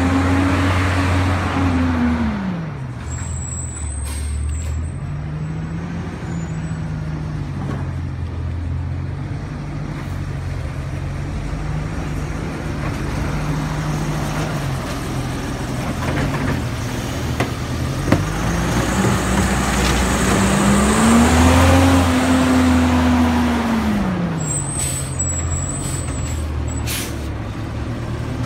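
Autocar side-loading garbage truck's engine idling, revving up and back down twice, near the start and again about two-thirds through, as it drives the hydraulics of the New Way Sidewinder automated arm. A sharp knock comes about 18 seconds in.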